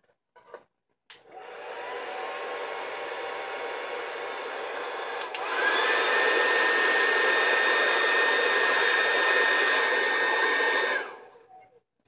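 Revlon hand-held hair dryer blowing into a plastic water bottle held over its nozzle. It starts at a low speed, rushing with a faint whine, then clicks up to a higher speed about five seconds in: louder, with a higher whine. It is switched off near the end, its whine falling away.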